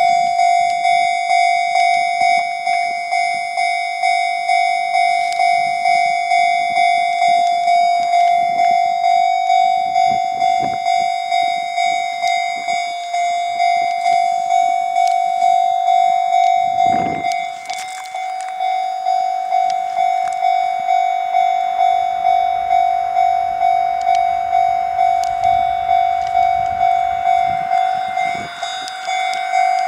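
Japanese level-crossing warning bell ringing steadily, a repeated clang about one and a half times a second. From about 22 seconds in, the low rumble of a limited express train passing over the crossing joins it.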